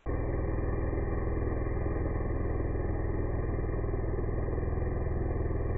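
Husqvarna 592 XP two-stroke chainsaw running steadily at full throttle, its chain cutting through a large white oak log. The sound comes in abruptly and holds steady throughout.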